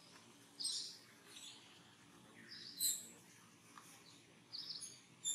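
Short high-pitched animal chirps, about six of them, the loudest near the middle, over a faint steady outdoor hiss.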